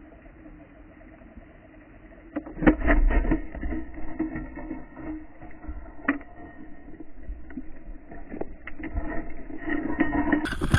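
Underwater speargun shot into a wreck hole about two seconds in: a sharp clack and a burst of rumbling, then scattered knocks and thuds as the spear and line work in the hole. All of it is muffled and dull, heard through an underwater camera housing. A louder rushing noise cuts in right at the end.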